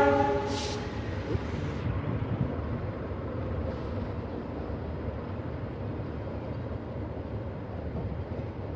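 Passenger train coaches rolling past on the rails, a steady rumble of wheels on track. The locomotive's horn cuts off right at the start.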